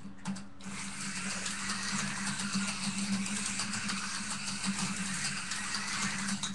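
Slot car's small electric motor running as the car laps its track, starting about half a second in and stopping abruptly near the end.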